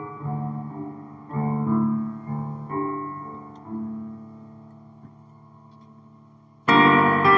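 Piano music: soft chords struck a few at a time, each ringing and fading, then a long fade-out before a much louder chord strikes near the end.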